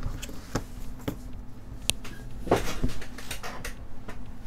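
Light clicks and taps of an iPhone 7 logic board and small tools being handled and set down on a bench mat, a few scattered knocks with a brief cluster of them about halfway through.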